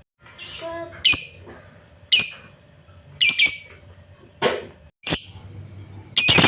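Lovebird giving short, shrill, high-pitched calls about once a second, six in all, with a fainter call about half a second in.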